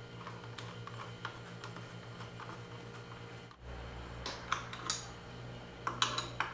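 Light clicks and taps of tools and small parts being handled while the cruise-control switch is fitted under the handlebar mirror mount, over a steady electrical hum. After a brief break just past halfway, a few sharper clatters follow in the second half.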